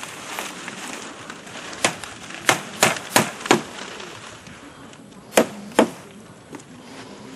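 Hammer driving nails through palm-frond stems into the wooden rail of a tiki hut frame. A quick run of about five strikes comes first, then two harder blows a couple of seconds later.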